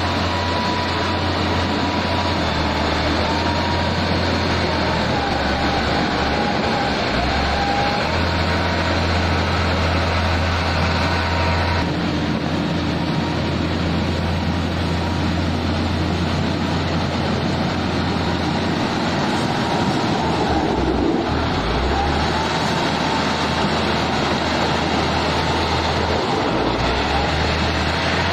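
Heavy road-construction machinery running with a steady low engine drone and mechanical clatter. The sound changes abruptly a few times.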